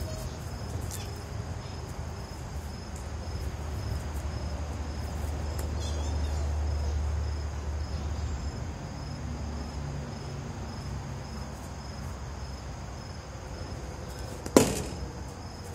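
A single sharp crack of a plastic wiffle bat striking a wiffleball about a second before the end. Under it runs faint, evenly pulsing insect chirping and a low rumble.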